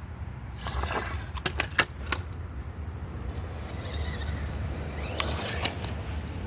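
FMS Smasher V2 RC monster truck running in short bursts, with a few sharp clicks and a faint high whine, over a low wind rumble.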